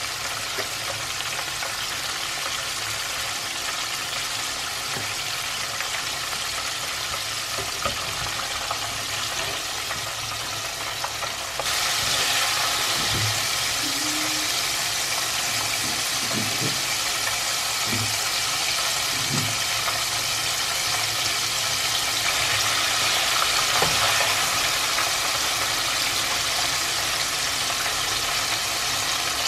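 Battered chicken deep-frying in hot oil in a pot: a dense, steady sizzle that steps up louder about twelve seconds in. A few soft, low knocks come through around the middle.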